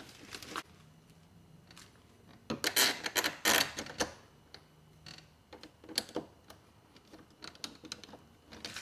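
A Phillips screwdriver hand-tightening the long machine bolts through a deadbolt's rear plate: scattered metal clicks and scrapes, loudest in a dense cluster about three seconds in.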